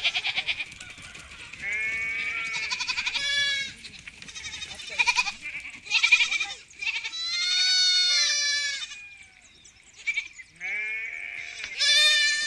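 A flock of sheep bleating, one call after another and sometimes overlapping. Some bleats are short and others long and quavering, with higher and lower voices mixed.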